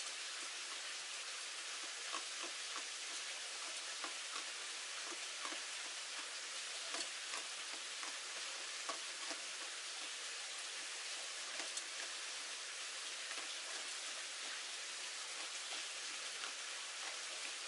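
Light rain: a steady hiss with many small scattered ticks of drops.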